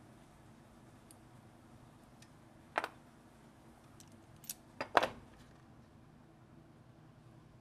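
A few sharp metal clacks from steel locking pliers being handled and set down on a plastic tray: a double clack about three seconds in, then a quick cluster around five seconds in, the last the loudest. A faint steady hum runs underneath.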